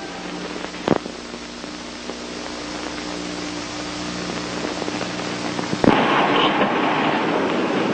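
Steady hiss and crackle of an old film soundtrack with a faint low hum, and a single sharp pop about a second in. About six seconds in it cuts suddenly to louder street noise with traffic.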